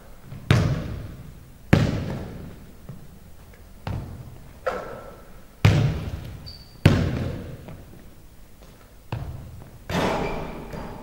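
A basketball thudding on a hardwood gym floor and off the hoop during shooting practice, with passes back and forth. There are about eight irregular thuds, each with a long echo that rings out in the big hall.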